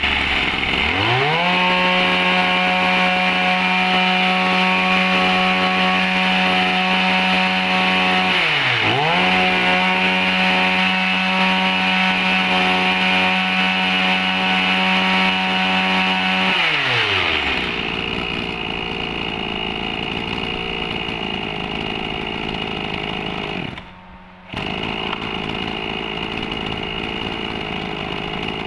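Maruyama 23 cc two-stroke brush cutter engine test-run. It goes from idle up to full throttle about a second in and holds high revs, with one quick let-off and pick-up around the middle. It then drops back to a steady idle for the rest of the time.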